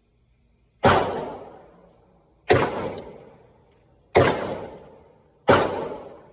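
Four gunshots about a second and a half apart, each followed by a trailing echo that dies away over about a second.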